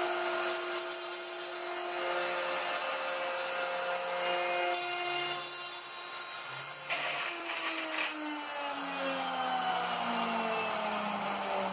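CNC router cutting the inside of a padauk end-grain ring: a steady spindle whir with the stepper motors' whine on top. The motor tones hold steady pitches that change in steps for the first half, then glide steadily lower from about halfway through.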